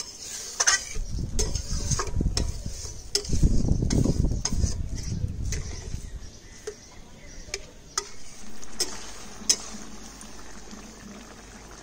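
Spatula stirring and scraping a thick vegetable curry in a cooking pan, with a soft sizzle. The heavier scraping comes in the first half, and sharp clinks of the spatula against the pan are scattered through most of it.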